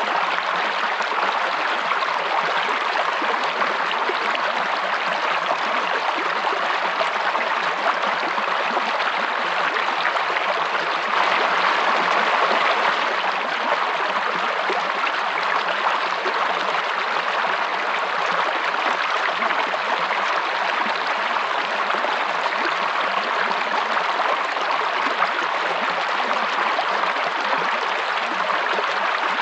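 Stream water running and splashing steadily, a little louder for a couple of seconds near the middle.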